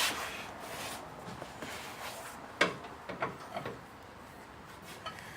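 A few light knocks and clunks of handling work, with faint muffled voices now and then.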